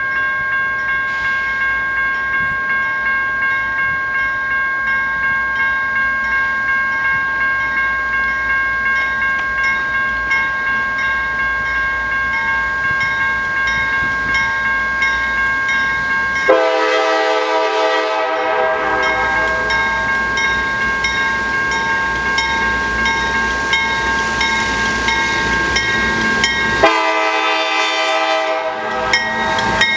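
Steady, pulsing electronic ringing of a grade-crossing bell, then, about halfway in, the horn of the leading CSX GE AC44CW locomotive sounds a long blast and, near the end, a second blast.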